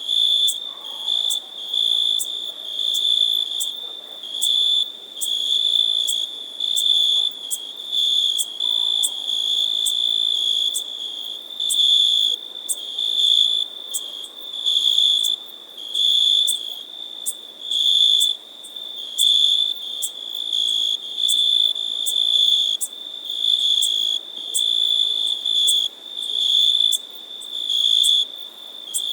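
Meadow insects chirping: a high-pitched trill that swells and fades about once a second, with sharp ticks over it.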